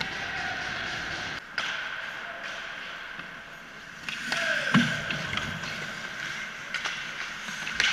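Ice hockey play: skates scraping on the ice under a steady rink hiss, with several sharp clacks of sticks and puck, the loudest about five seconds in.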